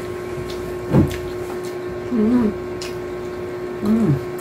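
A steady mechanical hum runs throughout. Over it, a woman makes short closed-mouth 'mm' sounds while chewing food, about a second in, again around two seconds, and near the end.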